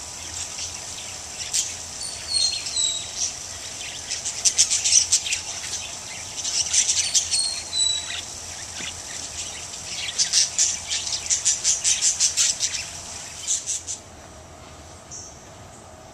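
A flock of small parrots chirping and chattering in rapid high-pitched bursts, with a few short falling whistles mixed in. The chatter stops near the end.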